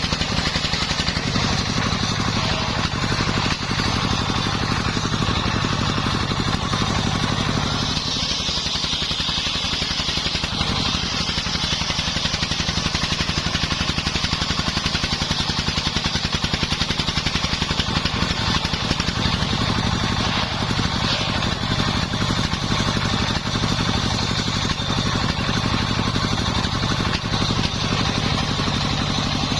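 Engine-driven circular sawmill running steadily, its engine humming under the high whine of the saw blade cutting through timber.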